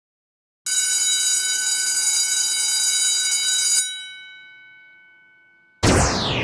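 An alarm-type bell ringing steadily for about three seconds, then stopping abruptly and dying away slowly. About a second before the end a loud falling whoosh sweeps in.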